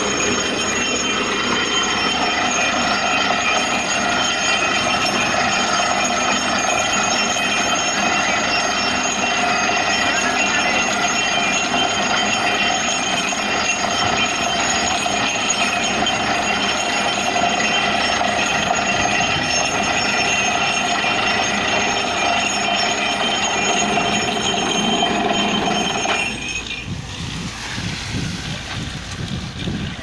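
Truck-mounted down-the-hole air-hammer borewell rig drilling, its compressed air blasting rock dust and wet cuttings up out of the bore, a loud steady machine noise with a constant high whine. About 26 seconds in the sound changes suddenly: the whine drops out and the noise becomes lower and quieter.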